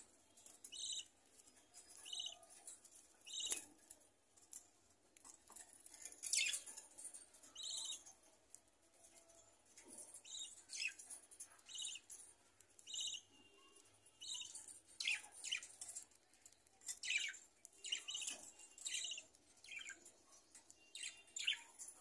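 Budgerigars chirping in short, high calls, about one a second.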